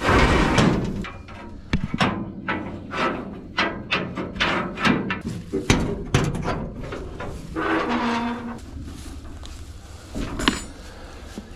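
Cattle being loaded: a run of sharp knocks and clatters, then a cow mooing once, briefly, about eight seconds in, and a sharp clank near the end.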